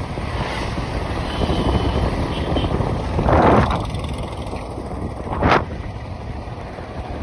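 Wind buffeting the microphone over the road rumble of a vehicle driving at speed on a highway. A louder rush of passing traffic swells about three and a half seconds in, and a short, sharp rush follows near five and a half seconds.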